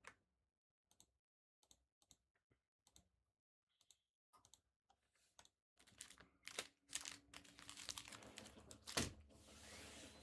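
Faint computer-keyboard typing: separate key clicks at first, growing busier about six seconds in, with one sharp louder click near nine seconds.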